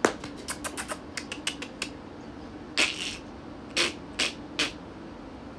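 Baby monkey handling things on a tabletop: a rapid run of small clicks and taps, then four short rustling scrapes, the last three in quick succession.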